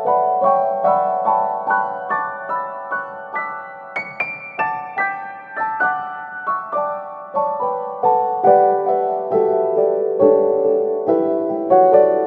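Background piano music: a gentle melody of evenly paced notes, each struck and left to fade.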